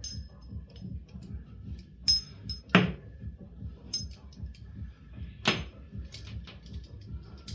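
Metal handcuffs and a key being handled, with small clinks and rattles and three sharper knocks about two, three and five and a half seconds in.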